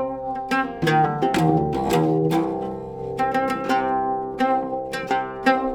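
Intro music of plucked string notes, several a second, each struck sharply and ringing on into the next.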